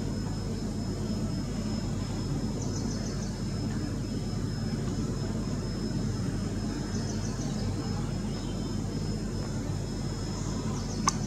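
Steady low background rumble with a thin high whine, twice broken by a short run of about four quick high chirps; a sharp click comes near the end.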